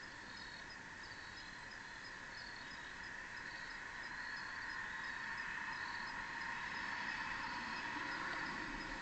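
Crickets chirping: a steady insect chorus with short high chirps repeating a few times a second. The chorus grows a little louder past the middle.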